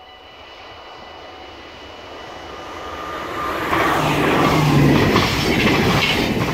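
Electric intercity passenger train approaching on the rails and passing close by. It grows steadily louder, with a faint steady whine at first, and about four seconds in turns into a loud running noise of wheels on rails as the coaches go by.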